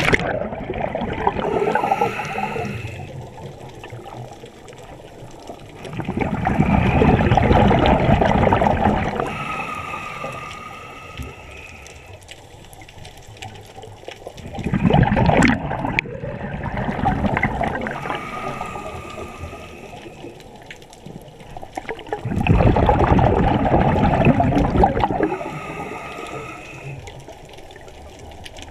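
Scuba diver breathing through a regulator underwater: loud bubbling exhalations about every eight seconds, each followed by a quieter inhalation with a faint two-tone whistle from the regulator.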